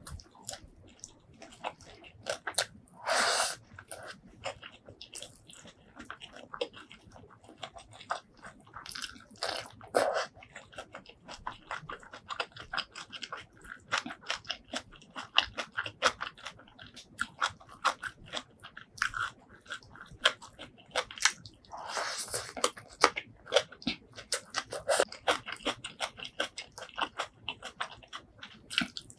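Close-miked chewing of spicy shrimp curry and rice: rapid, irregular wet clicks and crunches of biting and chewing. A few longer, louder rushes of sound break in, about three seconds in, around ten seconds and again near twenty-two seconds.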